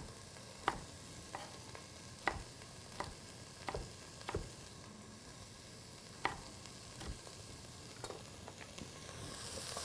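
Chef's knife dicing a red bell pepper on a wooden cutting board: about ten separate, irregular knocks of the blade on the board. Under them, a steady faint sizzle of onions frying in a pan.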